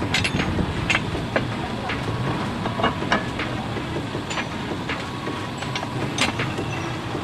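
Sharp metal clicks and taps of hand tools and parts at an irregular pace, over a steady low rumble.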